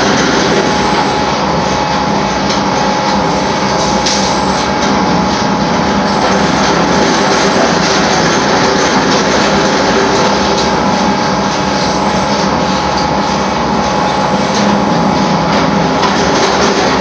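Camber straightening machine for thin steel and aluminium strip running steadily: its electric motor and row of straightening rollers make a continuous loud mechanical noise with a constant high whine.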